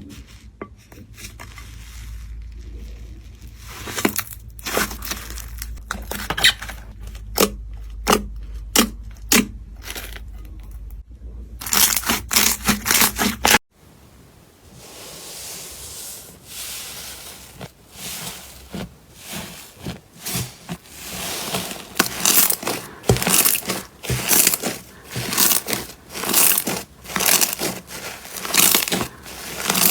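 Slime being squeezed and pressed by hand, making sticky pops and crackles. The first stretch has irregular sharp pops over a low hum. After a sudden cut about halfway, a denser crackling and crunching builds up toward the end.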